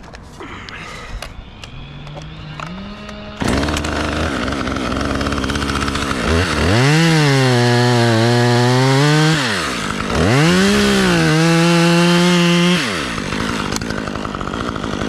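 Chainsaw running, then revved to full throttle twice. Each time the engine pitch sags as the chain bites into the wood and picks up again as it eases off. Between and after the cuts it drops back to a lower, steady speed. The saw is making a break cut through a white pine's trunk.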